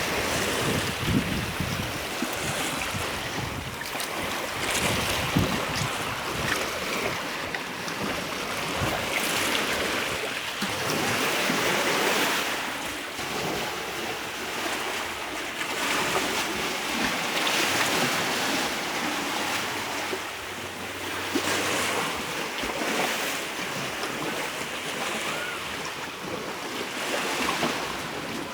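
Ocean surf breaking and washing up a beach, a steady rush that swells every several seconds as each wave comes in, with wind buffeting the microphone.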